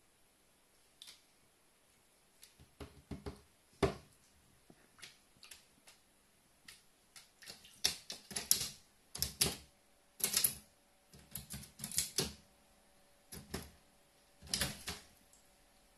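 Carrion crow's claws clicking and tapping on a bare wooden floor as it walks about, irregular sharp clicks, some in quick clusters.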